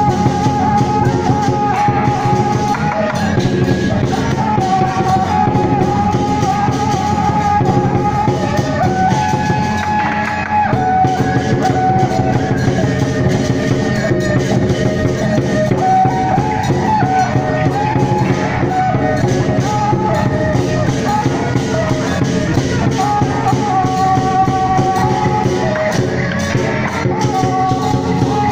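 Beiguan procession music: a loud, reedy suona-type melody held and stepping through its notes over continuous drumming and gongs.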